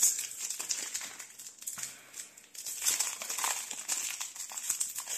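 A crinkly plastic packet being torn open and crumpled by hand, a dense crackling with sharp rustles at the start and again about three seconds in.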